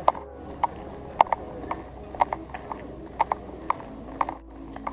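Footsteps on pavement, a sharp click about twice a second at a walking pace.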